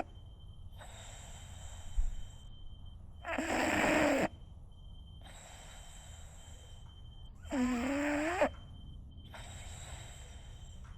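French bulldog snoring in its sleep: two loud, pitched snores about four seconds apart, each lasting about a second, with softer breaths in between.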